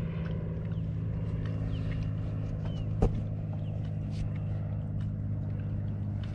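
A boat engine running steadily with an even low drone. There is a single sharp knock about three seconds in, and a few faint, short, falling chirps.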